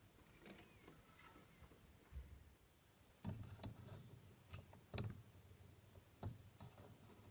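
Faint clicks and small knocks, a handful spread over a few seconds, the loudest about three, five and six seconds in.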